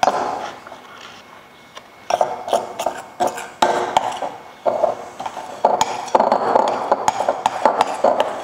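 A spoon scraping and clinking against a ceramic mixing bowl as it scoops coconut macaron batter into a cloth piping bag. The scrapes and clicks are uneven, sparse for the first couple of seconds, then come thick and fast.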